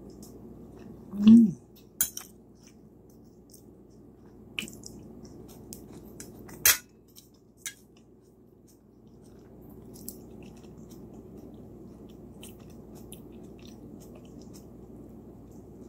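Someone eating: a metal spoon clinks against a ceramic plate a few times, with small chewing and mouth sounds between, over a steady low hum. The loudest sound is a brief one about a second in.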